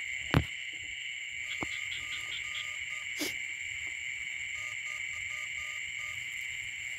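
Night chorus of small paddy frogs and insects calling in a steady high drone after rain, with short runs of rapid repeated calls in the middle. A sharp click comes just after the start, and two fainter clicks follow.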